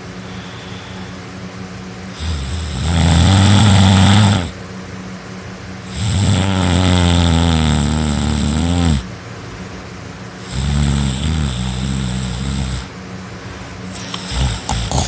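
A person snoring really loud in their sleep: three long snores, each two to three seconds, coming about every four seconds, the middle one the longest. A few short clicks come near the end.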